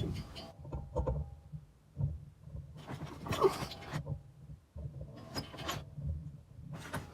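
Scattered handling noises, short scrapes and clunks, as the belt and brake linkage of a walk-behind mower are worked by hand, over a low steady rumble.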